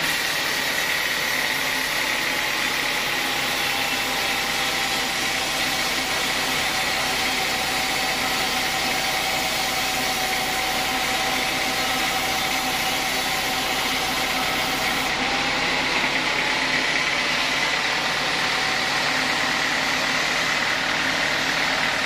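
Sawmill band saw running and cutting a teak log, a steady whine with a high tone over the noise of the blade in the wood.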